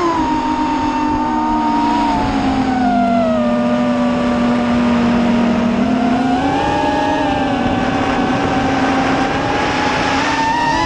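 Multirotor drone's electric motors whining in several close tones, heard from the onboard camera, over a rushing noise. The pitch falls about two seconds in, holds low, then rises again about six seconds in as the throttle changes.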